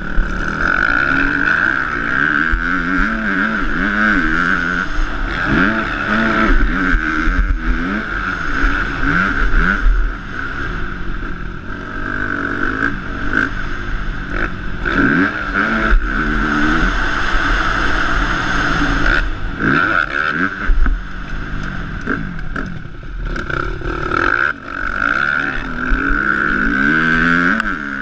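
KTM motocross bike engine running hard, its pitch rising and dropping again and again as the throttle opens and closes, with wind rushing over the microphone.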